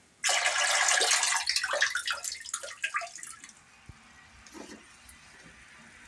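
Water splashing over nettle leaves in a plastic colander at a kitchen sink, starting suddenly as a steady rush, then breaking up into scattered splashes and drips that die away after about three seconds.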